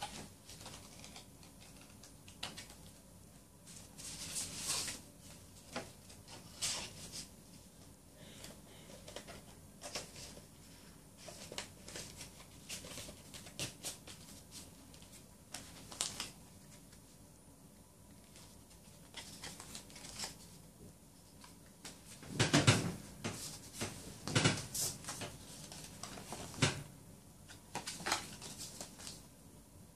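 A K-pop album's cardboard case, paper inserts and photocards being handled: scattered rustles, light taps and slides, with a louder run of handling noises about two thirds of the way through.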